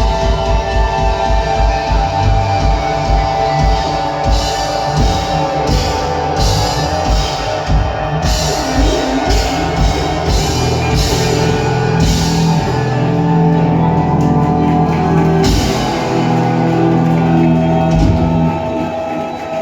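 Rock band playing loud heavy rock with electric guitars and drum kit: fast, dense kick-drum strokes in the first half give way to long held chords, which fade near the end.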